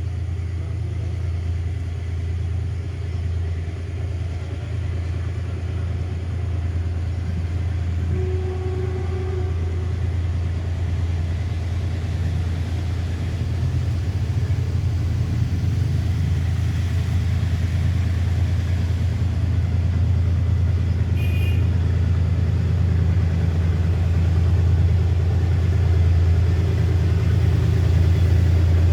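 Diesel engine of a Sri Lanka Railways class W3 locomotive running with a steady low drone, slowly growing louder toward the end.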